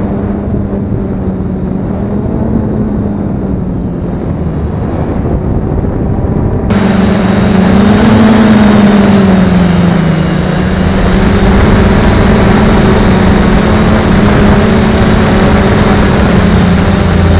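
DJI drone's motors and propellers humming steadily in flight, heard from the drone itself, the pitch wavering a little. About seven seconds in it gets abruptly louder, with a rushing hiss added over the hum.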